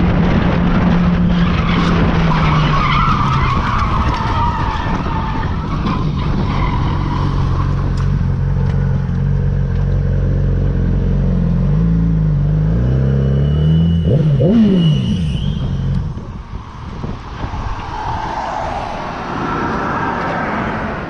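Sport motorcycle's engine running at highway speed, with heavy wind noise on the helmet microphone. About two-thirds of the way through, there is a short high squeal and a quick rise and fall in engine pitch. Then the engine note drops away and the sound gets quieter.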